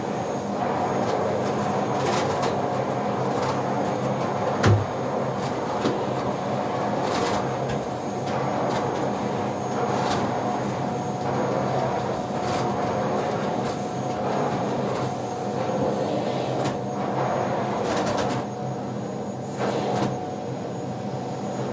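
Vacuum cleaner running steadily with a constant hum, with scattered knocks and clicks; the loudest is a low thump about five seconds in.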